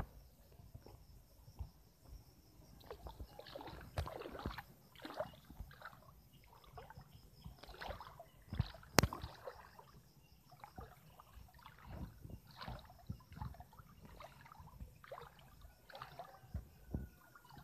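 A person wading through a shallow stream, the water sloshing and splashing unevenly with each step. There is one sharp click about halfway through.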